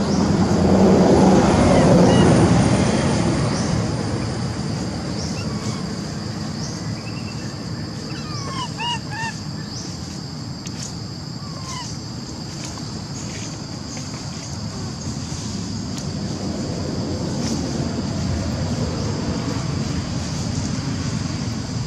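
Outdoor ambience: a low rumbling noise, loudest in the first three seconds, under a steady high-pitched hum. A few short rising-and-falling chirping calls come about eight to nine seconds in.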